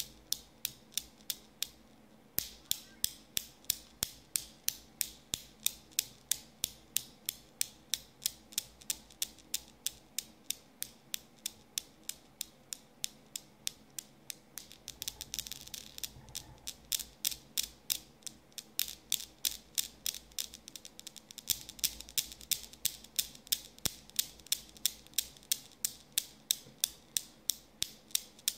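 Newton's cradle's steel balls clicking against each other in a steady rhythm, about three clicks a second, kept swinging by a cat's paw. The clicks are sparse for the first couple of seconds, then run on evenly.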